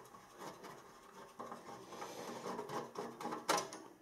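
Small screwdriver turning screws in the metal frame of an LED floodlight: faint scraping and ticking, with one sharper click near the end.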